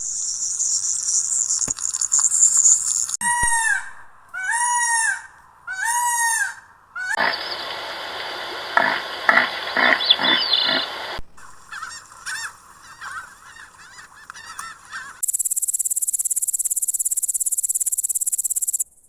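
A run of different animal calls, one after another. Among them are three rising-and-falling calls about a second apart, and near the end a steady high buzz.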